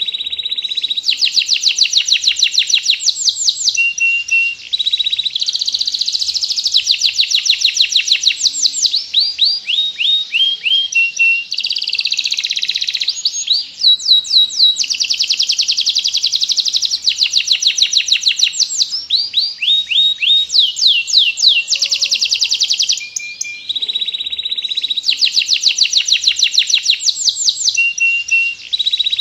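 Domestic canary singing continuously in long, rapid trills and chattering phrases, one after another with barely a pause.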